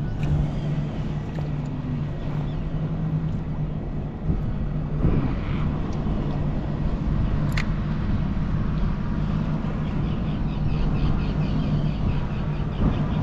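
Steady low engine rumble with a constant hum and a noisy haze over it. One sharp click about seven and a half seconds in.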